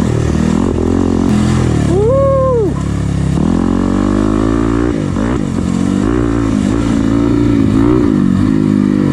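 Dirt bike engine running hard, revving up and down as the rider works the throttle, with one quick rev up and back down about two seconds in.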